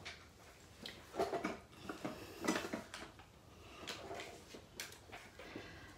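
Faint, scattered taps, clicks and rustles of paper-craft supplies being handled on a tabletop work mat.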